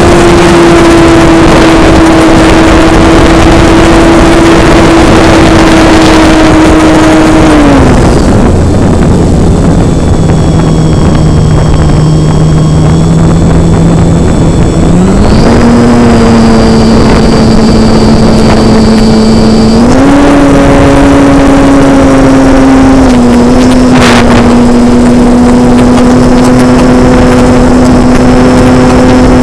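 RC model airplane's motor and propeller buzzing steadily in flight. The pitch drops sharply about eight seconds in as the motor slows, then steps back up twice, around fifteen and twenty seconds in.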